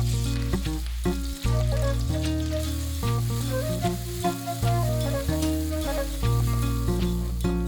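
Food sizzling in a hot pan as it is stir-fried and stirred, over background music with a steady bass line.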